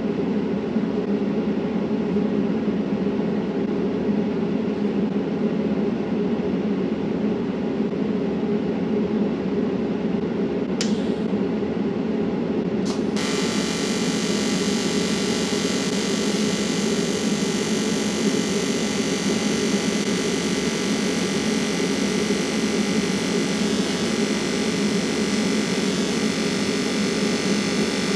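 A steady mechanical hum, then about 13 seconds in a welding arc is struck and its continuous hiss runs on over the hum as a bead is laid.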